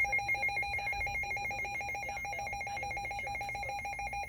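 Midland WR-300 NOAA weather radio sounding its alert alarm for a severe thunderstorm warning: a loud, rapidly pulsing electronic trill that warbles between two pitches and cuts off suddenly at the end.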